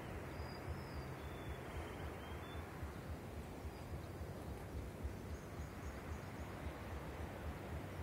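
Steady open-air background noise with a fluctuating low rumble on the microphone, and a few faint high chirps in the first two or three seconds.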